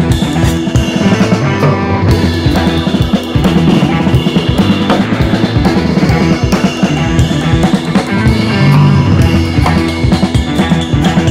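Background music: an instrumental track with a steady drum-kit beat of kick and snare over guitar.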